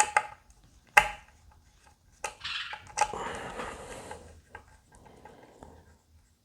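Small guitar parts being handled on a workbench. A sharp click is followed about a second in by a louder knock, then about two seconds of rustling and scraping, and a few light ticks near the end.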